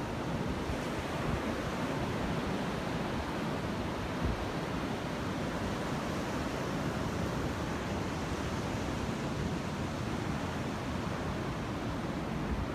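Ocean surf rushing steadily onto the beach, with wind buffeting the phone's microphone.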